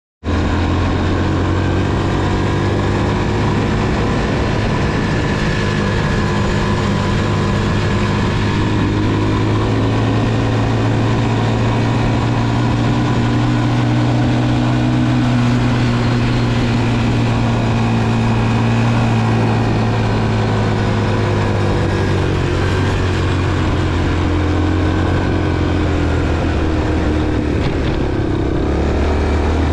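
Honda TR200 Fat Cat's single-cylinder four-stroke engine running at a steady cruising speed as the motorcycle rides along a dirt road, its pitch drifting slightly up and down.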